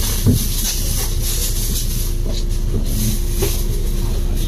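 Bus running, heard from inside the cabin: a steady engine rumble and hum with a hiss over it, a few light rattles and knocks, and one louder thump just after the start.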